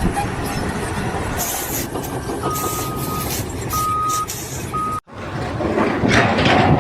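A heavy vehicle runs with a steady rumble while its reversing alarm sounds three beeps at one pitch. Near the end of the beeping the sound cuts off abruptly and gives way to different noise.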